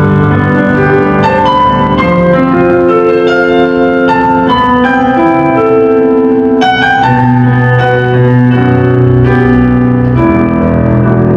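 Instrumental introduction of a ballad: keyboard playing a slow melody of held notes over sustained chords, with a low bass note coming in about seven seconds in. Recorded from the audience, so the sound is not clear.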